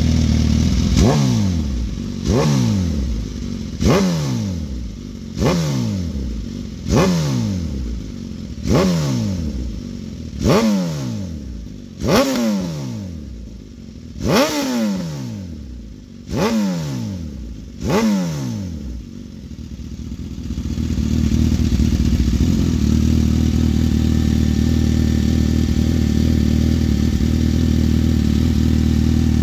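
2018 Suzuki GSX-S1000F's inline-four engine through a full-system Hindle exhaust with megaphone muffler, revved in about eleven quick throttle blips, each rising sharply and falling back. It settles to a steady idle about twenty seconds in.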